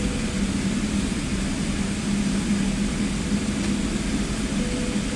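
Steady jet airliner cabin noise heard from inside the cabin: an even rush of engine and air noise with a constant low hum.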